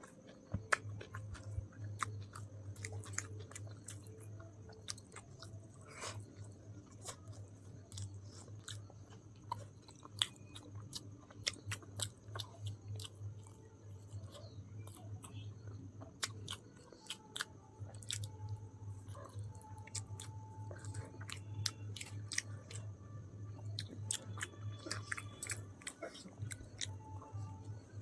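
A person chewing chicken biryani close to the microphone: a run of irregular wet mouth clicks and smacks, over a steady low hum.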